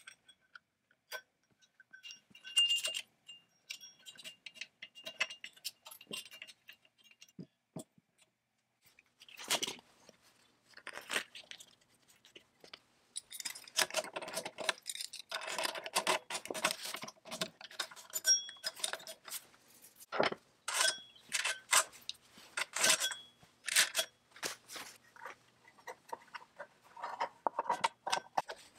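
Loose saw chain links clinking and rattling, and small metal parts clicking against the steel bar and sprocket, as a Strunk electric chainsaw's chain, plate and side cover are fitted by hand. Irregular clinks, busier in the second half.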